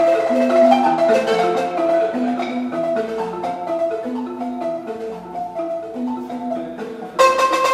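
Two balafons, wooden-keyed xylophones with gourd resonators, played together with mallets in a short repeating melodic pattern. The playing fades a little, then turns suddenly louder and brighter about seven seconds in.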